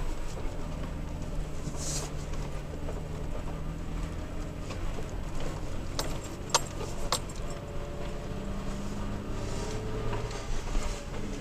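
Toyota Tacoma pickup's engine running as it drives a rough dirt forest road, heard from inside the cab, with the pitch rising about eight seconds in as the revs climb. Loose items rattle, and a few sharp knocks come about six to seven seconds in.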